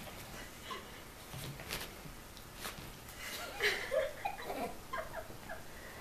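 A person giggling: a run of short laughs starting about three seconds in and lasting about two seconds.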